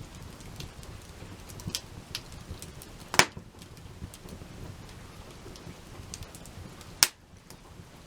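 Wood fire crackling, with a steady soft hiss and scattered small snaps, and two loud sharp pops, about three seconds in and again near the end.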